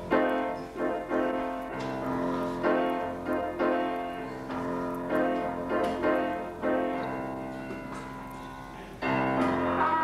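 Grand piano playing a slow piece, with chords and notes struck roughly once a second, each dying away before the next. About nine seconds in the music gets louder and fuller.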